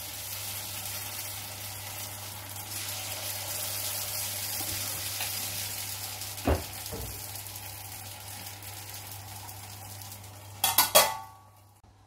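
Batter sizzling steadily in hot oil in the wells of a paniyaram pan. There is one sharp knock about six and a half seconds in, then a quick run of metal clacks near the end, after which the sizzle cuts off.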